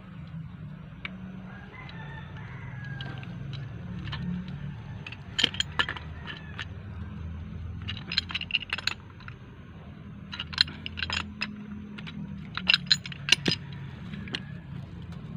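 Pipe wrench clicking and scraping on a black plastic threaded fitting as it is worked, in several quick clusters of sharp clicks, over a steady low hum.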